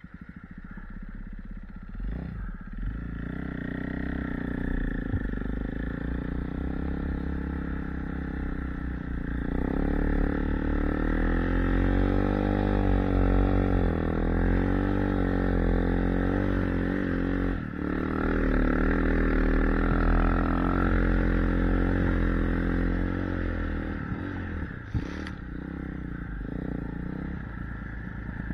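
Dirt-bike engine of a Timbersled snow bike running under a rider, steady at first, then louder from about ten seconds in with its pitch rising and falling as the throttle is worked through the snow. There is a brief drop in the engine note partway through and a single sharp knock near the end.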